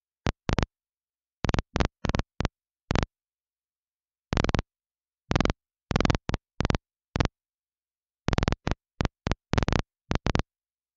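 Air-band radio receiver letting through some twenty short bursts of static, each a fraction of a second long, with dead silence between them as the squelch opens and closes. The bursts come in clusters, with longer gaps about four seconds and about eight seconds in.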